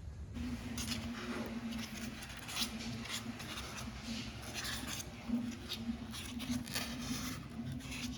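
A small DC motor running with a steady hum that starts about half a second in and cuts off at the end, over scattered clicks and rustles of handling.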